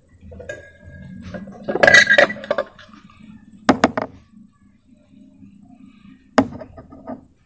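Light metallic clinks and knocks from small parts and tools being handled on a workbench: a cluster of clattering about two seconds in, a sharp double knock near four seconds, and one more sharp knock later on.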